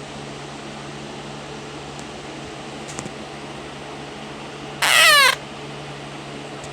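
A cat gives one loud meow about five seconds in, falling in pitch and lasting about half a second. Behind it a room fan whirs steadily.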